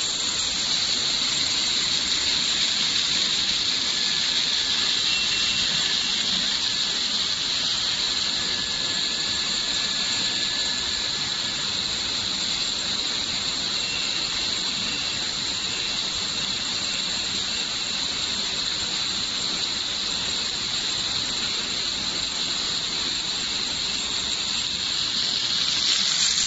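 Steady hiss of a steam shrink tunnel on a bottle sleeve-labelling line, with faint thin whistling tones coming and going over it.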